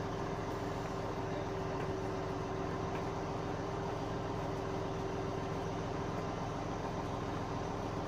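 Fishing launch's engine running steadily: an even drone with a constant hum throughout.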